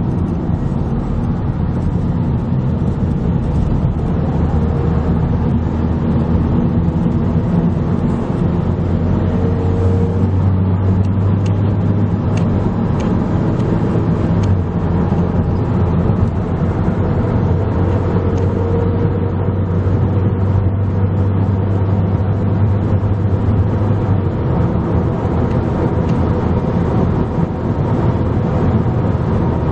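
Steady road and engine noise of a moving car, with a low hum that comes in about a third of the way through and drops out again well before the end.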